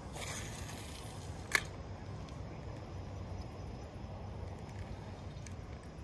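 Wind rumbling on the microphone, with a short hiss in the first second and a single sharp knock about a second and a half in.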